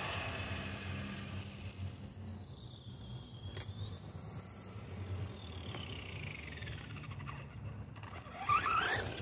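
Electric drive motor of an Arrma Typhon Mega RC buggy on a 3S LiPo, whining as it speeds along, its pitch rising and falling with the throttle. It is loudest at the start and again near the end, when the buggy runs close, with a single sharp tick in between.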